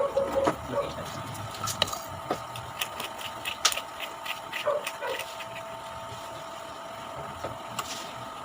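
Crisp crunching clicks of raw jicama being bitten and chewed, scattered through the middle few seconds. There are a few short high calls near the start, over a steady faint hum.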